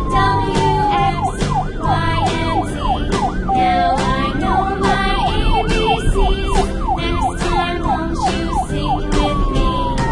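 Police siren sound effect: a long falling tone, then fast up-and-down sweeps, then another long falling tone. It plays over background music with a steady beat.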